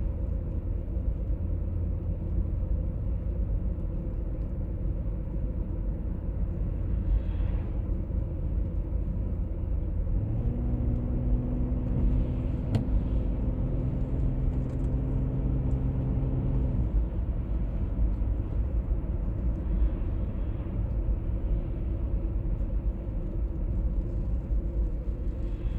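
A 1996 BMW E39 523i automatic on the move, with steady low road and drivetrain rumble. About ten seconds in, a steady droning hum with a clear pitch rises above the rumble, holds for roughly six seconds, then stops; this is the hum the owner is trying to diagnose, its cause not yet known.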